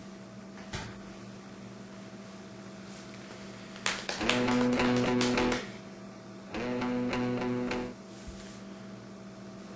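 Guitar music: two strummed guitar chords, each held for about a second and a half, the first about four seconds in and the second about a second after it ends, over a steady low hum.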